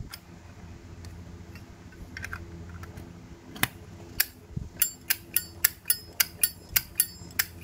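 Brushed-chrome Zippo lighter's lid being flicked open and snapped shut: a few scattered metallic clicks, then from about five seconds in a quick even run of clicks, about three a second. The clicks are fairly resonant.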